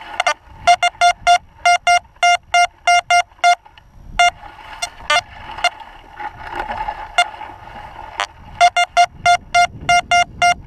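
XP Deus metal detector giving a run of short, high-pitched beeps, about four or five a second, as the coil is swept back and forth over a buried target, with a few scattered beeps in the middle and a second run near the end. It is a good high tone, the sign of a non-iron target, which turned out to be an old button.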